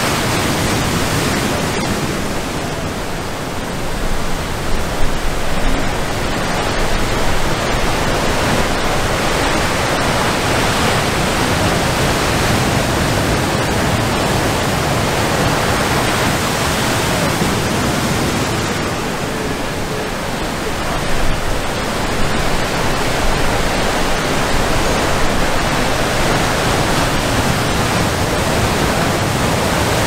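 Ocean surf breaking and washing ashore: a steady rushing roar that swells a little twice.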